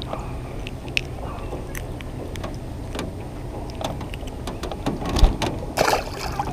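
Small clicks and taps of hands working a jig hook out of a bluegill's mouth and rethreading a soft-plastic bait, over a steady low rumble. A low thump comes a little past five seconds in, followed shortly by a short noisy burst.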